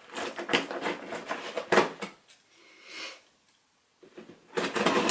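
A cardboard box being opened by hand: rustling, scraping and light knocks of cardboard and paper, with a short pause about three and a half seconds in before the handling starts again.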